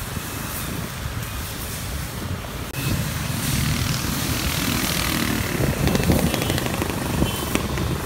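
Street traffic noise: motor vehicle engines running and passing as a steady low rumble, growing louder about three seconds in.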